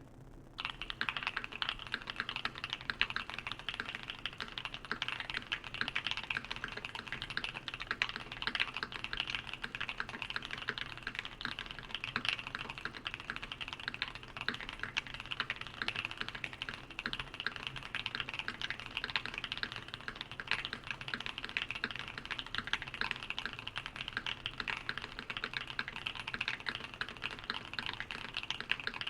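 Fast, continuous typing on a mechanical keyboard with lubed and filmed Boba U4T silent tactile switches (62 g), POM Cherry-profile keycaps, a polycarbonate plate and full foam; the keystrokes are muted and thocky, starting about half a second in.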